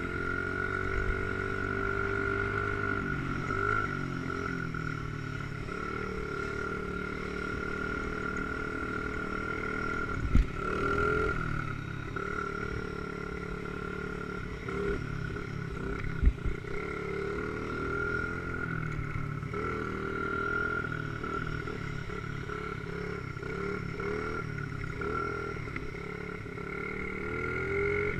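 Dirt bike engine running under way, its pitch rising and falling as the rider rolls on and off the throttle, with a couple of sharp knocks about ten and sixteen seconds in.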